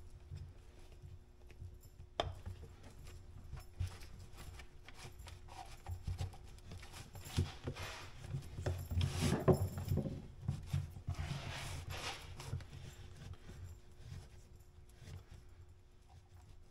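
Handling noise of a leather strap being worked through the loops of a leather climbing-spike pad: soft rubbing and rustling with scattered light clicks and knocks, busiest past the middle.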